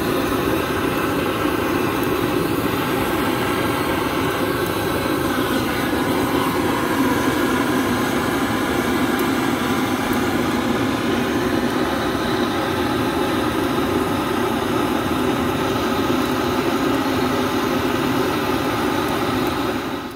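Propane torch burning with a steady roar, held into the wood of a fire pit to light it.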